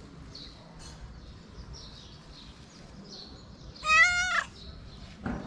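A domestic cat giving one loud meow about four seconds in, rising and then falling in pitch: a stray cat's begging call for food.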